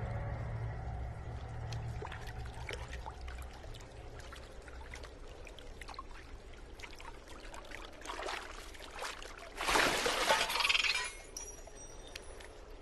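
Cave water dripping and lapping, with small splashes from a swimming capuchin monkey. Just under ten seconds in comes a loud rush of pouring water lasting about a second, as the monkey hauls itself out of the pool onto stone.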